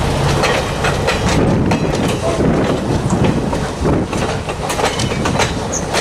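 Passenger coaches rolling past close by, the steel wheels rumbling on the rails and clicking and knocking irregularly over the track joints.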